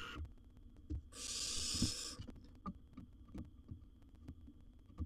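Barn owl giving one harsh, breathy hiss lasting about a second. Soft low thumps from scuffling in the wooden nest box are scattered around it.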